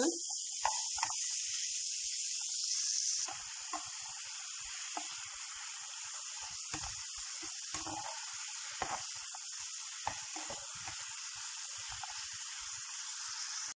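Sliced mushrooms sizzling steadily in hot oil in a frying pan, stirred with a wooden spatula that gives occasional short knocks and scrapes against the pan.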